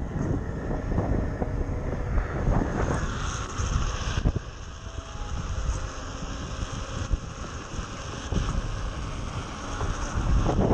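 Wind buffeting the microphone and the rumble of a Onewheel XR's treaded tyre rolling on asphalt while riding along a city street. The sound changes abruptly about four seconds in and gets louder near the end.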